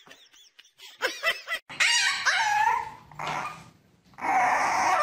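A dog whining and yelping: short pitched cries, quiet for the first second, then louder. A puppy whines near the end.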